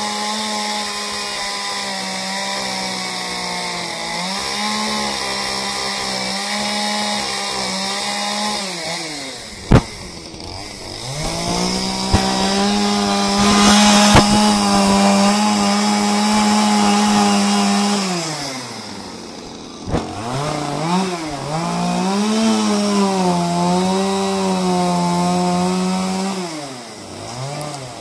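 Stihl MS 181 two-stroke chainsaw with a carving bar cutting into oak, held at high revs in long stretches and easing off three times, about a third of the way in, about two-thirds in and near the end, before speeding up again. Two sharp knocks come as the revs drop.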